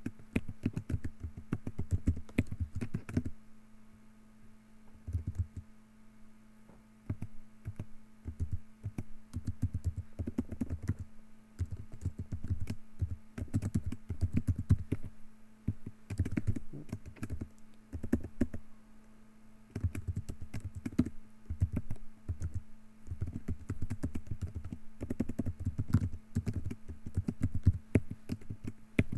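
Typing on a computer keyboard: fast runs of keystroke clicks broken by brief pauses, over a steady low hum.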